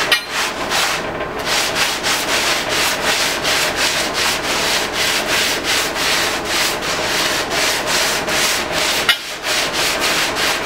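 Hand sanding of Bondo body filler on an aluminum wheel flare: sandpaper rubbed back and forth by hand in quick, even strokes, about three a second, with a brief pause near the end.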